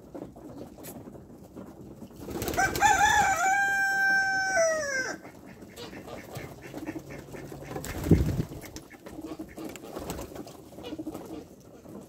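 A rooster crows once, a single long call starting about two seconds in that holds its pitch and then drops away at the end. Homing pigeons coo softly and shuffle underneath.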